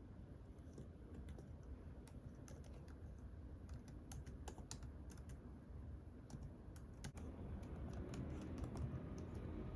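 Faint, irregular key clicks from typing on an Apple Magic Keyboard for iPad Pro, whose keys use a scissor mechanism.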